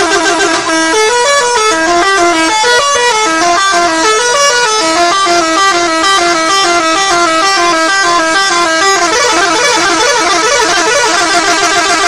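Bus 'telolet' musical horn: a set of electric horns playing a loud stepped tune, the notes changing several times a second and turning into a faster, denser run about three-quarters of the way through.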